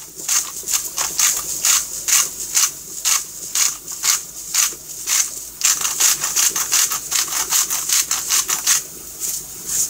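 Hand-twisted sea salt grinder grinding salt over a pot, a rhythmic rasping of about two or three strokes a second with a short pause midway.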